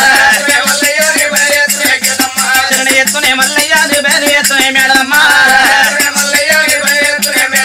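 Telangana oggu katha folk music: fast, steady percussion with a shaken jingling rattle and a wavering melody line.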